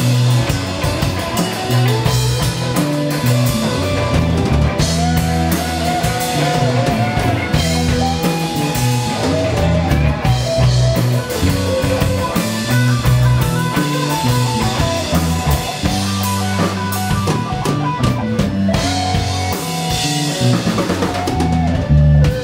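Live blues band playing an electric guitar lead with gliding, bent notes over a drum kit and a steady low bass beat.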